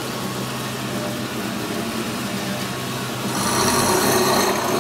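Concrete cylinder end grinder's motor running with a steady hum. A little past three seconds in, a louder, harsher high-pitched grinding sound joins as the grinder disc, fed in by hand, starts cutting the ends of the concrete cylinders.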